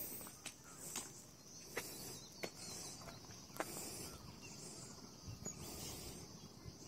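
Quiet outdoor ambience: a faint steady high hiss with a few scattered light clicks.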